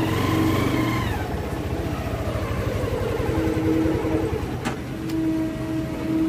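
Motorcycle engine running at low speed in slow traffic, easing off in the first second. A steady single tone sounds on and off over it, longest in the second half.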